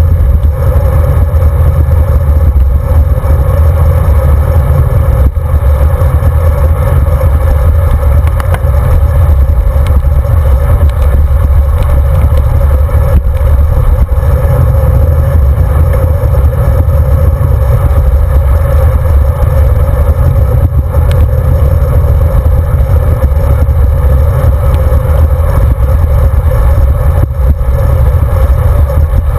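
Steady, loud low rumble of wind buffeting the microphone of a handlebar-mounted camera on a road bicycle riding at speed, mixed with tyre and road noise from the asphalt.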